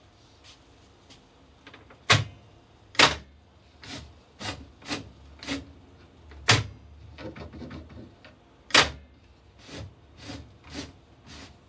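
Clacks and clicks of a DeWalt table saw's lock lever, fitted with a golf-ball handle, being worked open and shut by hand. Four sharp knocks stand out, about two, three, six and a half and nine seconds in, with lighter clicks and rattles between them.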